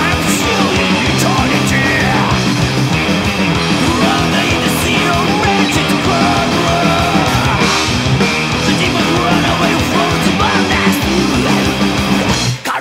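Loud, dense thrash metal recording: distorted electric guitars, bass and drums playing without a break, the music dipping briefly near the end.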